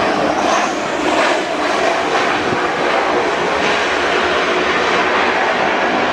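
Passenger aircraft's jet engines running loud and steady, a broad rushing noise that swells a few times in the first three seconds.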